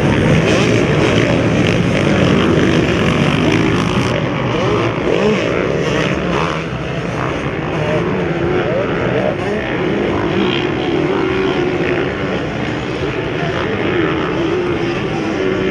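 Several motocross bikes' engines running hard on the track, their pitch rising and falling as the riders rev through the gears.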